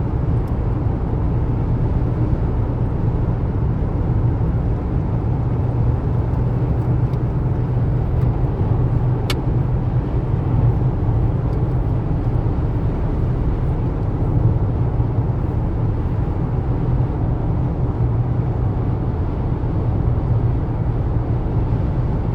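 Steady low rumble of a car driving at a constant speed, heard from inside the car: engine and road noise with no change in pace. A single short click about nine seconds in.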